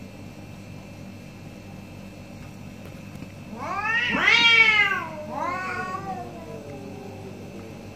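Orange domestic cat yowling at a rival cat in a face-off: about three and a half seconds in, a loud drawn-out call rises and then falls, followed by a second, quieter yowl that slides down in pitch. This is the threatening yowl of two cats squaring off.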